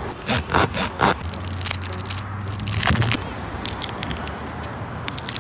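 A few short scraping strokes as a tyre-repair reamer is worked in a puncture in the tread, then a plastic wrapper crackling in quick small clicks as sticky tyre plug strings are peeled out of their packet.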